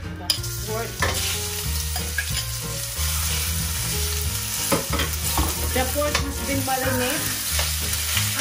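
Marinated pork belly frying in olive oil in a pan: a steady loud sizzle that starts abruptly right at the beginning, with the food stirred and a few sharp utensil scrapes against the pan.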